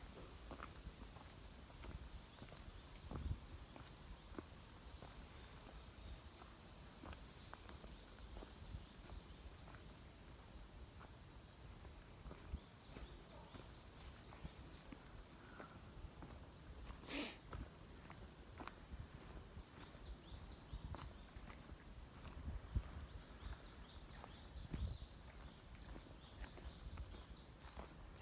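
A steady, high-pitched insect chorus rings continuously, with the soft, irregular footsteps of a walker on a forest trail underneath.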